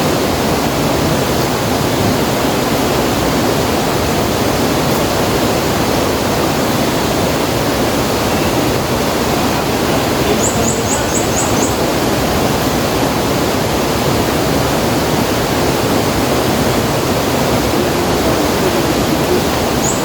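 River water rushing in a steady, loud wash. About halfway through, a short run of five quick high chirps cuts in briefly.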